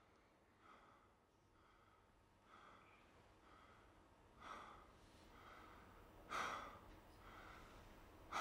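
Faint audible breathing of a man, soft breaths under a second apart, with two louder breaths or sighs about four and a half and six and a half seconds in.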